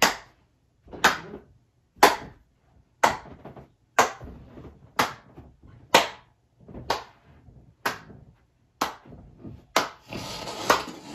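One person clapping slowly and steadily by hand: eleven sharp single claps, about one a second.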